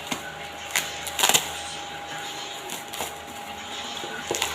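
Handling of unboxed items and their packaging: a few sharp clicks and a short rustle about a second in.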